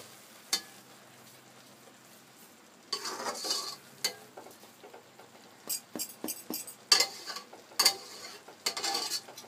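Flat spatula stirring sweet rice and scraping and knocking against the sides of an aluminium pot. There is one longer scrape about three seconds in, then a run of sharp taps and scrapes through the second half.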